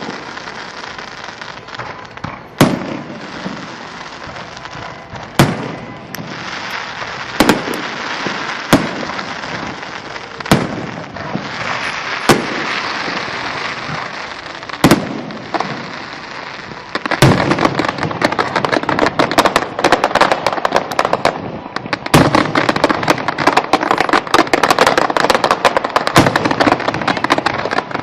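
Aerial fireworks: single shell bursts go off every couple of seconds, with crackling between them. About two-thirds of the way through, a dense barrage of rapid crackling pops takes over and stays loud.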